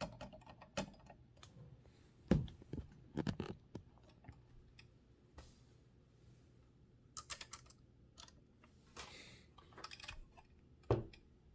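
Scattered mechanical clicks and clacks from a 1925 Mignon 4 index typewriter's backspace mechanism being worked by hand, its key return spring unhooked so only the finger lifts the key. A short rubbing scrape comes about nine seconds in.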